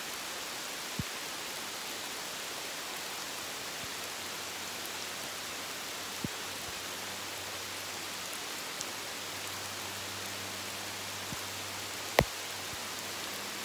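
Steady rain falling on forest leaves, an even hiss with a few sharp ticks of single drops. The loudest tick comes near the end.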